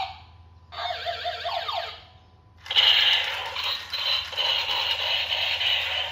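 Battery-powered toy gun's electronic sound effects: a short warbling burst ending in falling zaps about a second in, a pause, then a longer harsh electronic firing rattle from about halfway to the end.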